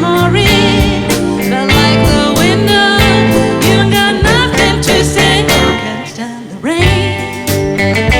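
Live blues band playing: drum kit, bass, guitars and piano under a wavering lead melody with vibrato. The band drops back briefly about six seconds in, then comes in again full.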